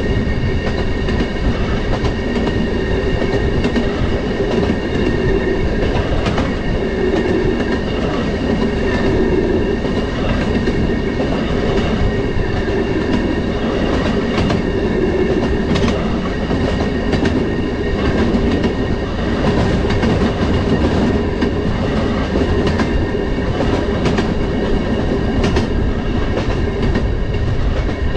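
Railroad motorcar (track speeder) running along the rails: a steady loud drone and rumble with scattered clicks of the wheels over rail joints.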